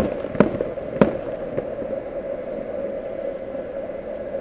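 Distant aerial fireworks: three sharp booms in the first second, then a fainter one about a second and a half in, over a steady hum.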